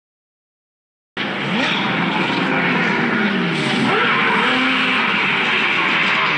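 Silence for about a second, then a speedboat's outboard engine running hard at close range, its pitch rising and falling as it revs.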